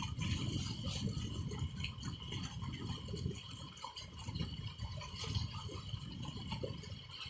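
Heavy stream of water gushing from a tube-well's steel outlet pipe into a brick water tank, a steady rushing pour with a low rumble underneath, splashing irregularly as radishes are rinsed under it.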